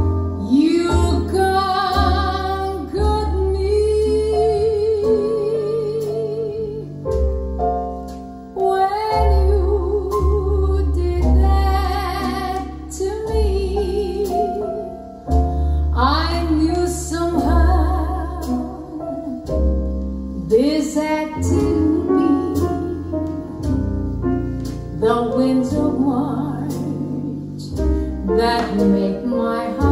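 A song with a woman singing long notes with vibrato over piano and deep bass, played from a vinyl record on a Zorin TP-S0 turntable through Divini Audio Reference 8 bookshelf speakers and heard in the room.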